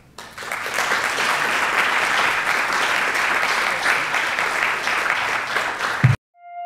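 Audience applauding, starting a fraction of a second in and cut off abruptly about six seconds in, with a single sustained musical note starting just before the end.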